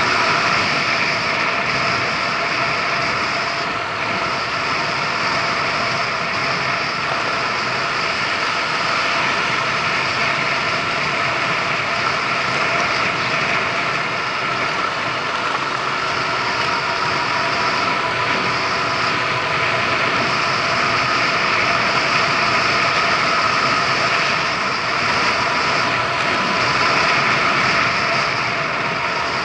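Kymco Agility City 125 scooter's single-cylinder four-stroke engine running steadily at a cruise of about 45 km/h, with steady wind and road noise.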